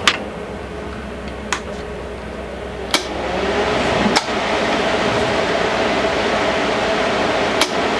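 Hobart Handler 120 MIG welder's cooling fan running, with a few sharp clicks. About three seconds in, the wire feed motor starts with a steady hum and runs quietly, its wire feed speed rheostat contacts freshly cleaned of oxidation with a commutator stone.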